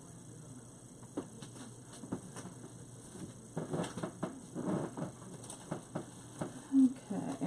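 Dry grapevine wreath being handled while a bow is wired onto it: irregular crackles, clicks and rustles that start about a second in and grow busier in the second half. A brief low sound near the end is the loudest moment.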